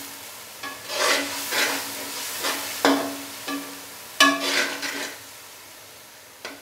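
A metal spoon scrapes and stirs ginger, garlic and green chilli paste sizzling in hot oil in an aluminium karahi. There are several scraping strokes over the first five seconds, and it goes quieter near the end.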